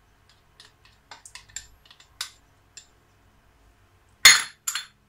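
A spatula scraping tomato paste out of a small ceramic bowl with faint light ticks, then the bowl clinking down twice on the granite counter a little over four seconds in.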